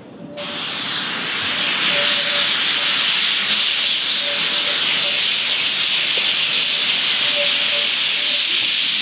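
A narrow-gauge steam locomotive's safety valves lift suddenly about a third of a second in and blow off steam with a loud, steady hiss, the sign that the boiler is at full working pressure.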